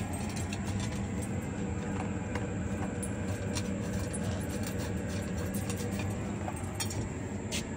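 A dog eating from a metal bowl, with many small irregular clicks and clinks. A steady low mechanical hum runs underneath.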